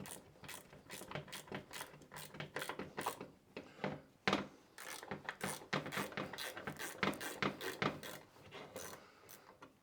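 Irregular metal clicks and rattles from the NP203 transfer case shifter assembly being handled and worked apart, its spring-loaded plates and parts clacking together.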